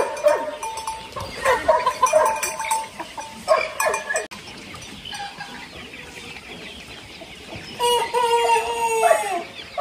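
Chickens clucking in short calls, then a rooster crows once near the end: one long call that falls away at its close.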